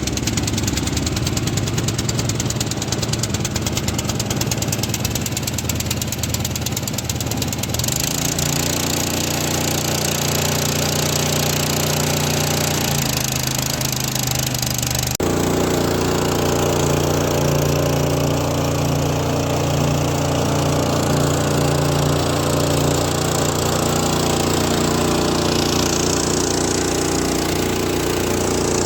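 Small engine driving a water pump, running steadily. Its tone shifts abruptly about 8 seconds in and again about 15 seconds in.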